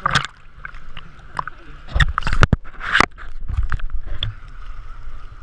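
Sea water splashing and sloshing around a camera held half under the surface by a swimmer, with muffled gurgling as it dips; the loudest splashes come at the very start and around two and three seconds in.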